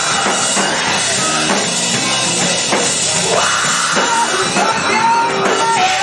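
Live heavy rock band playing loud: electric guitar over a drum kit, with a singer's voice on top.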